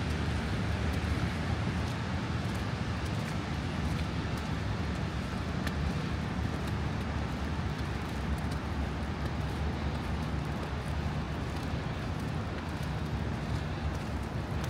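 Steady outdoor ambience of wind rumbling on the microphone, mixed with city traffic noise, with no distinct events.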